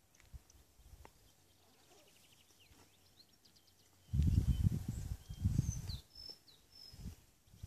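Songbirds chirping and whistling in the trees, with a short run of clear high whistled notes a couple of seconds from the end. About four seconds in, wind buffets the microphone in gusts, a low rumble that becomes the loudest sound.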